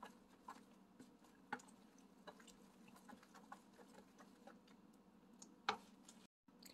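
Faint, irregular clicks and taps of a wooden spoon against a baking dish as a wet oat-and-banana cake batter is stirred, the loudest tap near the end.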